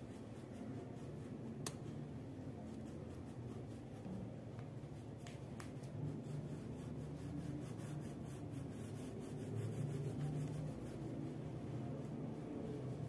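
Faint rubbing of a wax crayon scribbling on paper, with a few light ticks.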